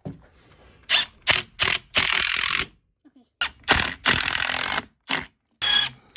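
A series of harsh scraping strokes: three quick ones about a second in, then longer strokes of up to about a second and a half, with short pauses between them.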